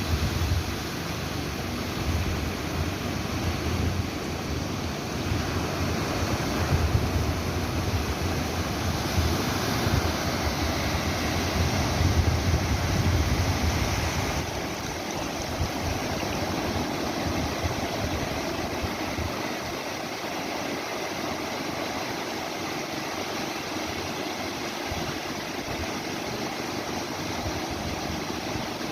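Sea waves washing in, a continuous rushing hiss. Low rumbling swells come and go through the first half, then give way to a steadier hiss about halfway through.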